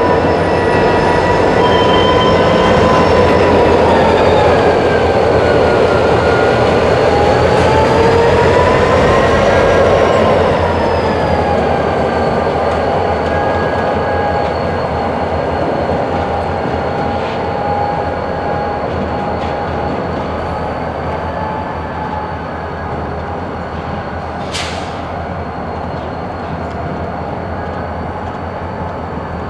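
Freight cars rolling on yard track, steel wheels squealing against the rails in a high, wavering tone over a steady rumble. The sound fades gradually after about ten seconds, and one short sharp high squeak comes near the end.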